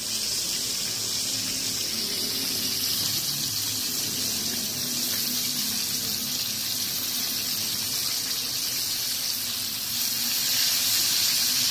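Whole starch-coated fish deep-frying in hot oil in a wok over high heat: a steady sizzle, a little louder near the end as the fish is lifted and turned with tongs.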